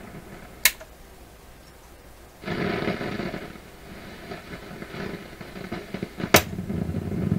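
PYE 39HC valve shortwave receiver putting out noise through its speaker, coming in suddenly about two and a half seconds in and wavering in level. There is a sharp click shortly after the start and another near the end. The noise is a fault the owner suspects lies in the volume control.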